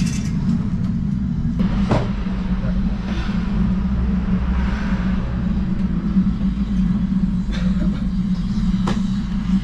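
A steady low rumble, with a few light taps and clicks over it.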